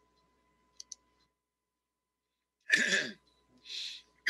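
Two quick faint mouse clicks about a second in, advancing a slide, then a man's short, loud cough near three seconds in, followed by a breathy exhale.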